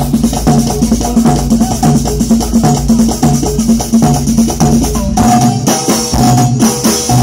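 Live band music amplified through PA speakers: electronic keyboard with percussion over a repeating bass line. About five seconds in, the deepest bass drops out.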